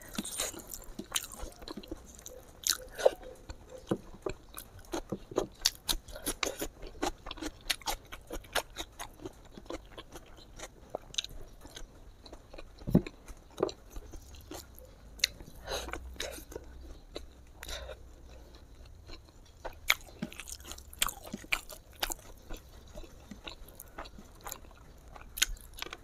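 Close-miked chewing and mouth sounds of a person eating smoked pork and sticky rice by hand: many short, irregular wet clicks and smacks, picked up by a clip-on microphone.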